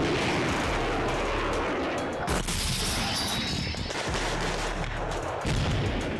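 A dense, unbroken barrage of sharp bangs and cracks, with music underneath.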